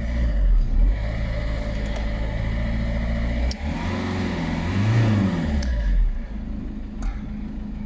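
Citroën C2 1.4 HDi four-cylinder diesel engine idling, heard from inside the cabin. It is revved once about three and a half seconds in and drops back to idle about two seconds later. It is running with a freshly fitted air filter.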